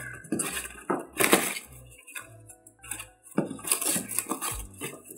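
Polystyrene foam packing blocks being pulled and shifted inside a cardboard box: several irregular bursts of scraping, rubbing and crunching foam against foam and cardboard.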